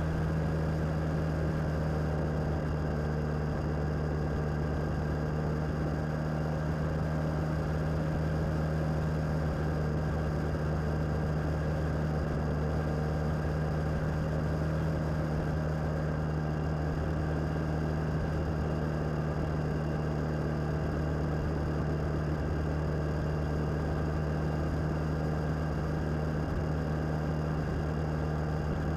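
Suzuki DL650 V-Strom motorcycle's V-twin engine running at a steady cruising speed, a constant, unchanging drone.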